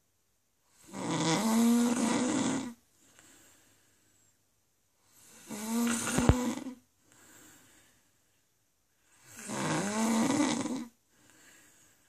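A sleeping woman snoring: three loud, rasping snores about four seconds apart, each lasting about two seconds and followed by a softer breath, with a short click during the middle one.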